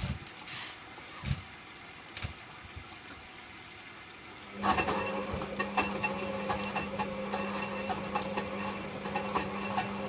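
Servis Quartz 6033 washing machine's motor starting up about halfway through and turning the drum, a steady hum with many scattered clicks and rattles; a few sharp knocks come before it. The noise is suspected to come from something in the drum rather than the motor.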